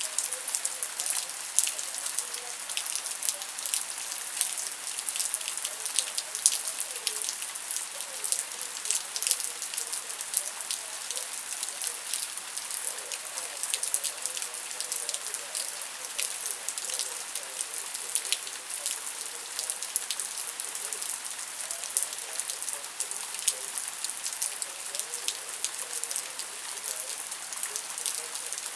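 Steady rain falling, with a dense mass of individual drops hitting close by over an even hiss.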